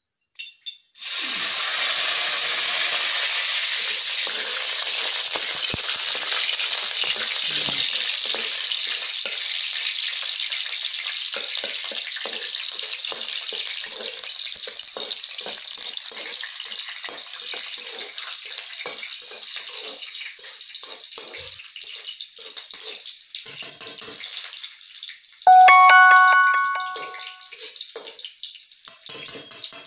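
Food sizzling in hot oil in a kadhai (wok). The sizzle starts suddenly about a second in and slowly eases off. About 25 seconds in, a metal utensil rings out loudly for a second or so.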